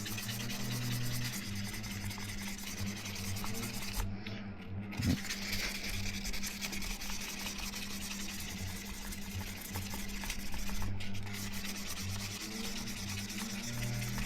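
Sandpaper rubbed rapidly back and forth by hand over a scratched polycarbonate dive-housing lens, sanding out deep scratches to make it flat, with a short break about four seconds in and another near the end.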